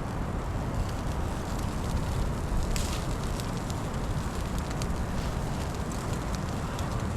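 Firewood fire crackling, scattered sharp pops over a steady low rumble.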